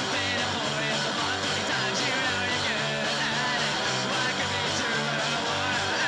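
Three-piece punk rock band playing: electric guitar over bass and drums, from a home-recorded 1996 basement demo cassette.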